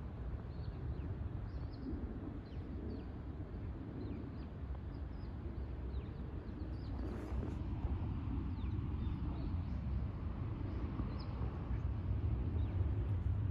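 Outdoor ambience: a steady low rumble with many faint, short, high bird chirps.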